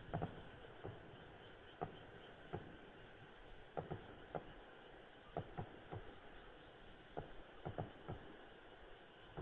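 Fireworks crackling: scattered sharp pops, about fifteen at irregular intervals, while the low rumble of an earlier burst dies away at the start.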